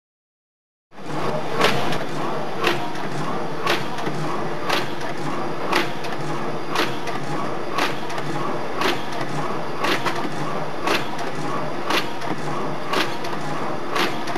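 Food container forming machine (WS-9905) running, starting about a second in: a steady mechanical clatter with a sharp knock about once a second as it cycles.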